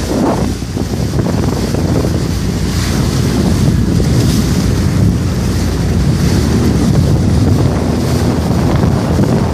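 Jet ski under way: its engine runs steadily beneath the rush of water and heavy wind buffeting the microphone.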